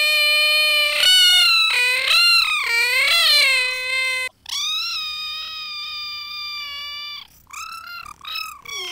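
High-pitched, pitched-up screaming in a cartoonish voice, a cry of fright. One long wavering scream is followed by a second held steadily for about three seconds, then a few short yelps near the end.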